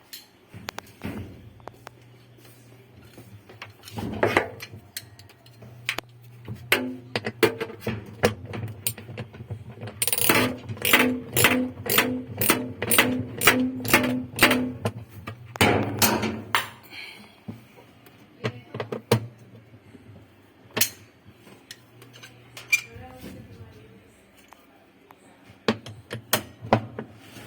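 Metal clinks and knocks from hands and tools working on washing machine parts during disassembly, including a run of evenly spaced ringing taps, about two or three a second, in the middle, over a steady low hum.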